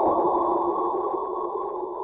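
Black hole sonification, presented as the sound of a black hole consuming a star: an eerie rushing drone that fades gradually, with a faint thin high whine above it.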